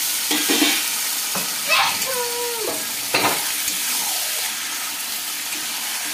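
Raw chicken pieces sizzling in hot oil and masala in a kadhai, seared at the bhuna stage once the masala has let go of its oil. A long metal spoon stirs them, knocking against the pan a few times.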